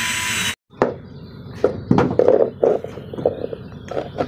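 A loud, steady power-tool whir cuts off abruptly about half a second in. It is followed by irregular knocks and clatter from handling on wooden planks.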